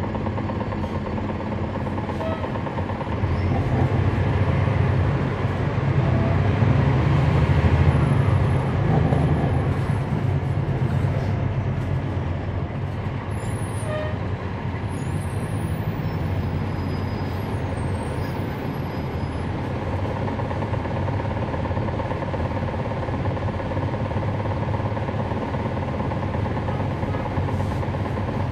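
On-board sound of a 2011 NABI 416.15 transit bus with a Cummins ISL9 diesel engine and ZF Ecolife six-speed automatic transmission, running steadily. About three seconds in the engine grows louder for several seconds, then settles back to a steady run.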